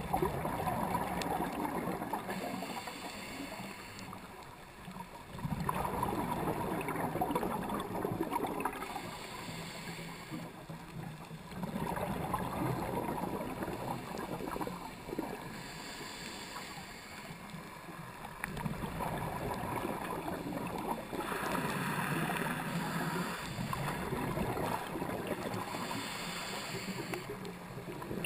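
Scuba diver's regulator breathing heard underwater through the camera housing: muffled bubbling exhalations alternating with a thinner hiss, in slow cycles about every five or six seconds.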